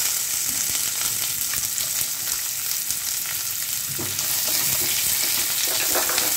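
Chopped onions sizzling in hot mustard oil in a nonstick kadai, the onions just added and frying. From about four seconds in, a spatula stirs and scrapes them against the pan.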